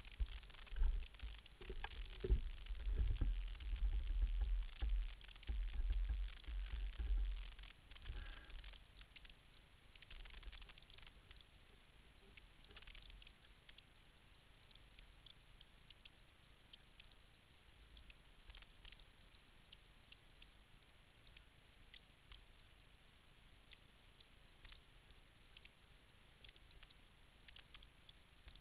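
Wind buffeting the microphone of a camera on a sailboat under way, in heavy gusty rumbles for about the first eight seconds, then easing off to faint scattered ticking and patter.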